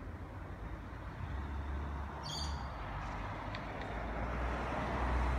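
Train at a station platform: a low, steady engine rumble that grows louder toward the end, with a brief high squeal about two seconds in.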